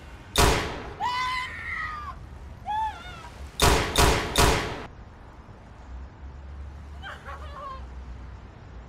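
Handgun shots: one shot, then a person's cry, then three shots in quick succession about half a second apart. A fainter cry follows a few seconds later.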